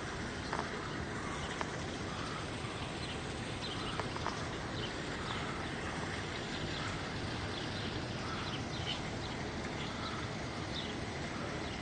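Steady outdoor background noise with birds chirping now and then, short high chirps and softer lower calls scattered throughout.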